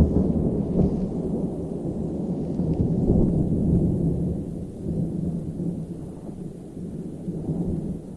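Thunder rumbling and rolling in a heavy thunderstorm. It is loudest at the start and swells again about three seconds in, then dies down toward the end.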